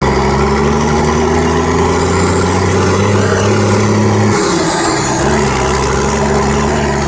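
Diesel engine of a JCB JS220 excavator running steadily with a low humming note. About four seconds in the note breaks off for about a second, then settles again.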